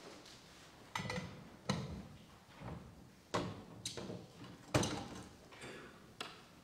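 About six separate sharp knocks and clacks at uneven intervals, each trailing a short echo in the large church; the loudest comes a little under five seconds in.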